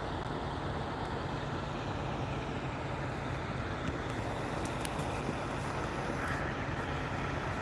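Distant road traffic: a steady low engine hum over even road noise.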